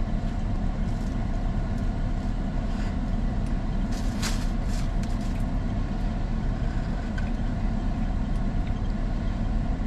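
Steady low rumble of an idling car engine, with a few faint short crackles around the middle.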